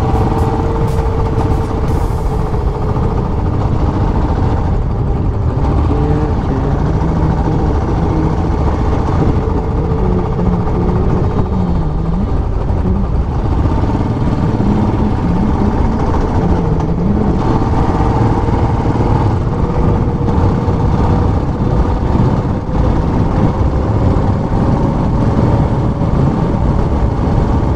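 Royal Enfield Classic 500 single-cylinder engine running under way, with a heavy low rumble. The engine note dips and rises a few times.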